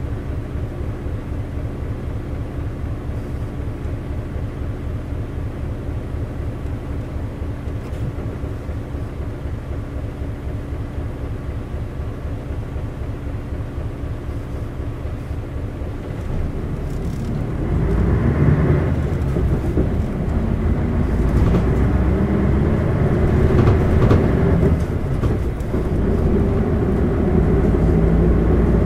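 Isuzu LV city bus's 8PE1-N V8 diesel heard from inside the bus, idling with an even, steady pulse. About two-thirds of the way in it revs up and grows louder as the bus pulls away. Near the end there is a brief dip, like a gear change, and then the engine note rises again.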